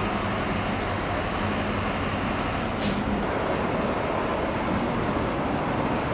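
Fire trucks' diesel engines running over steady street noise, with one short hiss of air brakes about three seconds in.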